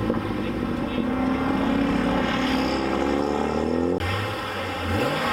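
A car engine droning as the car drives off, its pitch sinking slowly. At a sudden cut about four seconds in, another engine takes over with short rises and falls in pitch, like quick throttle blips.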